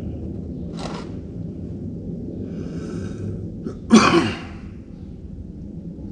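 A man sneezes once, loudly, about four seconds in, after a softer drawn-in breath, over a steady low rumble.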